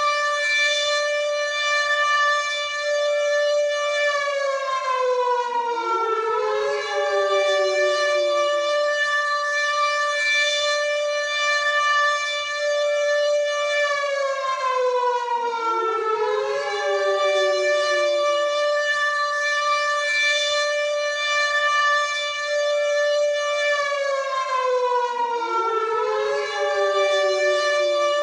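WW2-style air raid siren wailing. It holds a steady high pitch, then slides down while a second tone swoops back up to the held pitch, a cycle that repeats about every ten seconds, three times.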